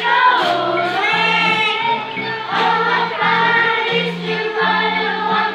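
A children's choir singing a Christmas song together, over an accompaniment of steady low notes that change every half second or so.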